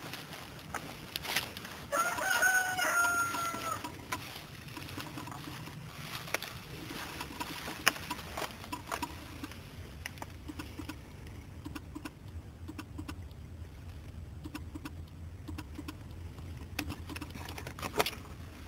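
A rooster crowing once, a single held call of about two seconds starting about two seconds in. Scattered light clicks and knocks follow, with a sharper click near the end.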